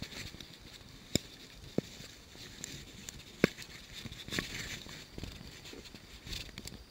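Handling noise of an angler landing a small bass on a fly rod: light rustling and scuffing of hands and fly line, with three sharp clicks in the first half.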